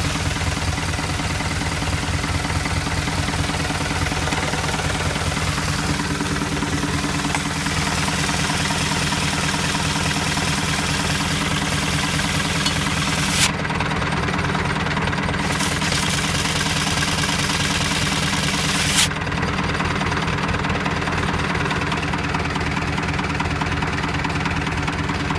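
Tractor engine running steadily with a fast, even pulse, heard close to the replacement PTO clutch being tested. A high hiss over it cuts off sharply about halfway through, returns briefly, and stops again with a click about three-quarters of the way through.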